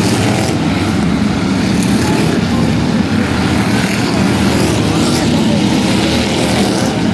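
Several car engines running loud and steady, with faint rising and falling pitch as cars race around the track.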